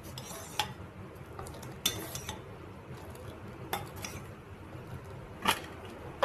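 A metal spoon or utensil clinking against a cooking pot, about five short, sharp clinks spread irregularly, over a faint steady background hiss.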